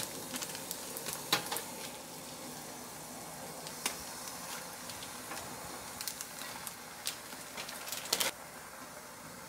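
Food sizzling quietly in a frying pan, with scattered clicks and taps of a utensil against the pan and a short cluster of them just after eight seconds.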